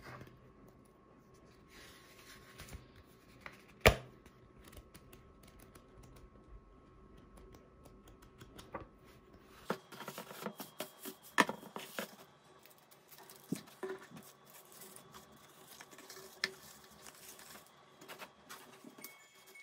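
Paper and cardboard being handled: a planner notepad and cards moved about in a cardboard box of crinkle-paper shred, giving scattered light rustles, taps and clicks. One sharp click comes about four seconds in, and the handling is busiest a little past halfway.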